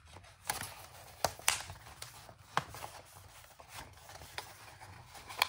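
Paper notebook inserts being handled and slid into a leather Traveler's Notebook cover: soft paper rustling with several sharp taps and clicks scattered through it.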